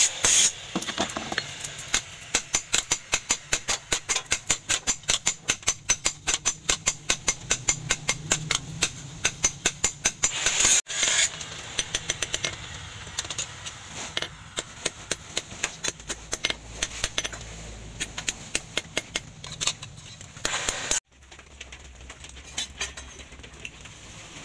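Hand hammer forging a red-hot leaf-spring steel cleaver blank on a steel post anvil: a steady run of sharp hammer blows, about two to three a second. The hammering cuts off abruptly about halfway through and again near the end, leaving only a few faint taps.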